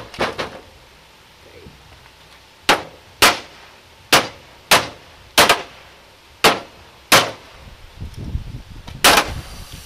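Sledgehammer blows on the plastic rear housing of an IBM CRT monitor, about ten sharp cracks roughly half a second to a second apart, aimed at snapping the picture tube's glass neck. The last blow, near the end, is followed by a faint hiss of air entering the tube as the neck breaks and the vacuum is released.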